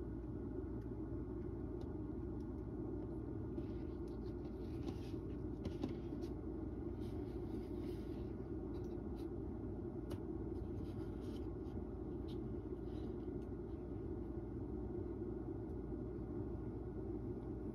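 Steady low hum of room noise, with faint soft rustles and ticks between about four and eight seconds in.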